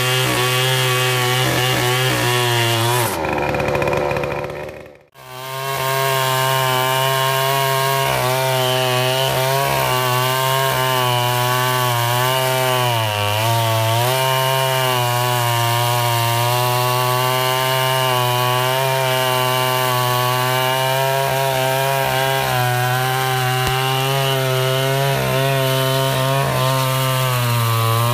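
An 82 cc two-stroke chainsaw with a 24-inch bar runs at high revs while its chain cuts through a thick log. The engine note wavers and sags briefly about halfway through as the chain bites under load. Near the start the sound drops away for a moment, about five seconds in, then comes straight back.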